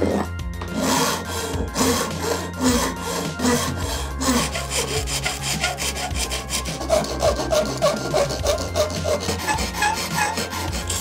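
Flat hand file scraping back and forth in quick, even strokes against the edge of an FDM 3D-printed plastic window frame, cleaning up the printed part.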